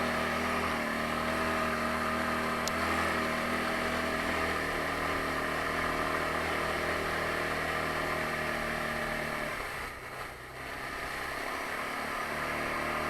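Taotao 150cc ATV's single-cylinder engine running steadily under way on the trail. It eases off about ten seconds in, then picks up again.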